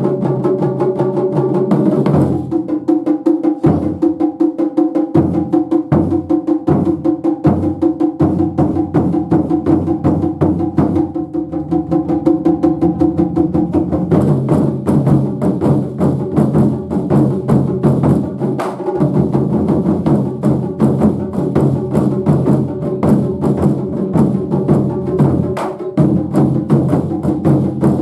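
Japanese taiko drums played by an ensemble in fast, continuous strikes. The deep drums cut in and out in short gaps a few seconds in, and the playing fills out and grows busier about halfway through.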